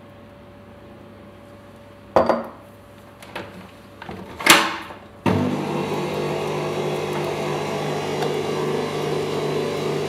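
Bosch stand mixer: a few knocks and a sharp click as the mixer head is handled, then about five seconds in the motor starts and runs at a steady speed, beating butter with egg yolks in the plastic bowl.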